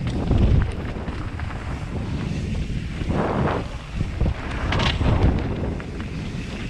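Wind buffeting a helmet-mounted microphone on a fast mountain-bike descent, over the rumble of tyres on a dirt trail, with brief hissier rushes about three and five seconds in.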